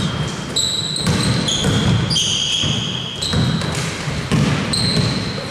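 Basketball shoes squeaking on the court floor again and again, a string of short high-pitched squeaks each at its own pitch, with the ball being dribbled under them.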